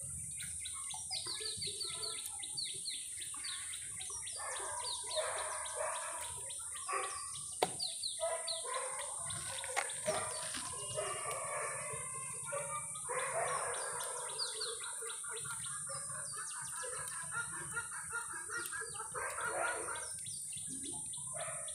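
Chickens clucking and small birds chirping, the chirps quick falling notes repeated many times over, over a steady high-pitched hiss. A single sharp click about seven and a half seconds in.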